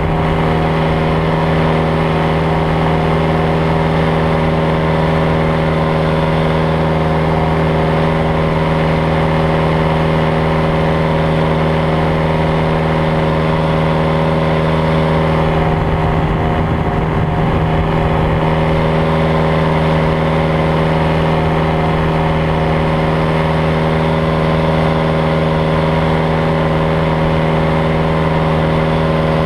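Powered paraglider's engine and propeller running steadily in flight, a constant drone with several steady tones. The sound wavers briefly about halfway through.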